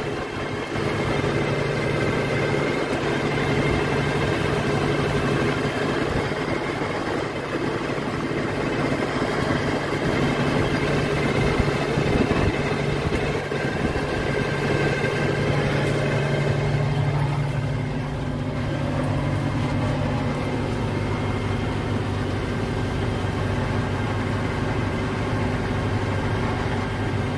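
Tractor's diesel engine running steadily under load while it pulls a row-crop cultivator through the soil, heard from inside the cab. The hum holds a constant pitch, with a slight change in tone about two-thirds of the way through.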